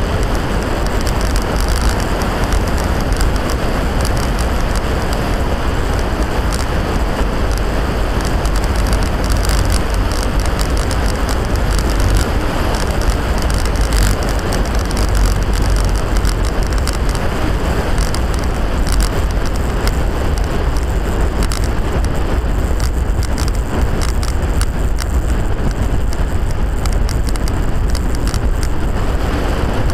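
Sinner Mango Sport velomobile rolling fast on a paved path: steady wind on the microphone over a deep road rumble through the shell, with frequent small rattles.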